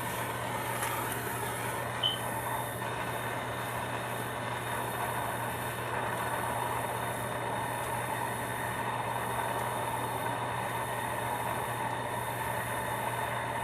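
Soldering torch flame burning with a steady rushing hiss while heating a copper pipe joint, with a brief high chirp about two seconds in.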